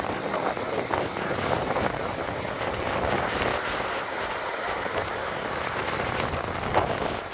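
Wind buffeting the microphone over the wash of surf on the beach: a steady rushing noise that rises and falls a little, with one short louder gust a little before the end.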